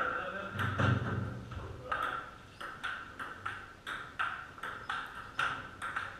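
Table tennis rally: the celluloid ball clicking off paddles and the table, two to three hits a second, each click with a short ring.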